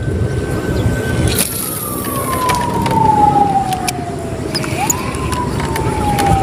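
Siren wailing in the distance: one clear tone that holds, glides slowly down, jumps back up near the end and starts falling again, over a low rumble.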